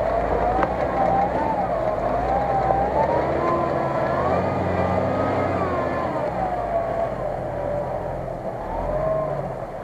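Mitsubishi Pajero SUV's engine pulling steadily as it crawls through a deep, water-filled mud rut, with a high wavering whine over it that slides up and down about once a second.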